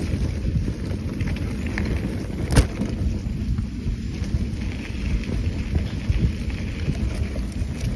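Wind buffeting the microphone and the rumble of a mountain bike riding over a dirt trail, with one sharp knock about two and a half seconds in.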